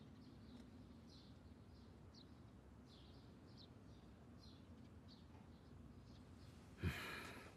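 Near silence with faint, scattered bird chirps in the background. About seven seconds in, a single sudden thump, trailing off in a short rustle.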